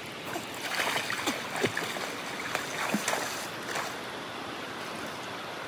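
River water sloshing and lapping around people wading waist-deep, with scattered small splashes and gurgles.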